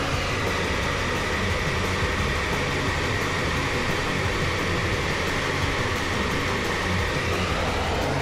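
Fire boat's engine and fire pump running steadily while the bow water monitor shoots a stream. There is a low, even drone under a constant rushing hiss of spraying water.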